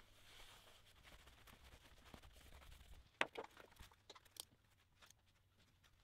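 Near silence with faint rubbing, then a few small, sharp clicks and taps as a dial test indicator on its arm is set against a milling-machine spindle nose, the loudest a little over three seconds in.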